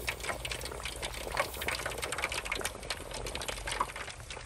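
Oil sizzling and crackling steadily as slabs of pork belly deep-fry in an aluminum tray, with a low steady hum underneath.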